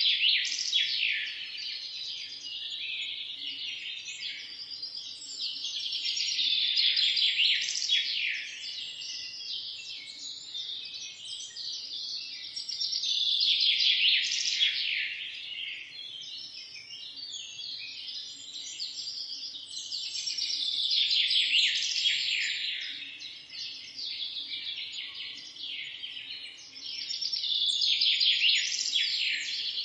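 Many birds chirping and singing at once, a dense morning chorus of quick trills and tweets that swells and eases again about every seven seconds.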